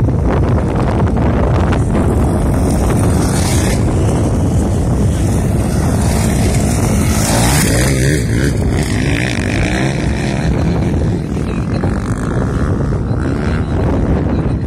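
Motocross motorcycles racing past on a dirt track, their engines running hard, with wind buffeting the microphone. The engine noise peaks about halfway through as two bikes pass close by.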